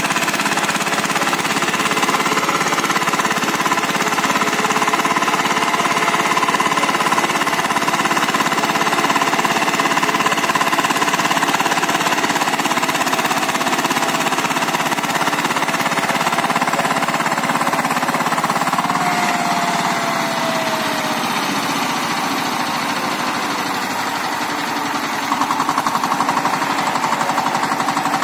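Single-cylinder diesel engine of a walk-behind power tiller running steadily under load as its rotary blades till soil. Its note sags briefly partway through and grows louder a few seconds before the end.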